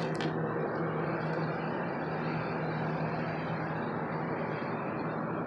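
Steady mechanical hum with an even rushing noise underneath, holding a constant low pitch throughout, like a nearby idling engine or running machine.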